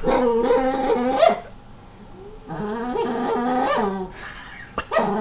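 Small dog making drawn-out, wavering, talk-like whining vocalisations in two bouts, with a third starting near the end.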